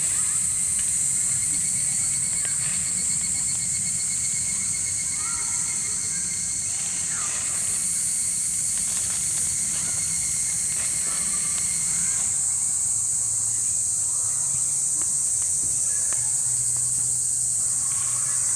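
A steady, high-pitched chorus of night insects, with a rapid trilling insect that stops about two-thirds of the way through.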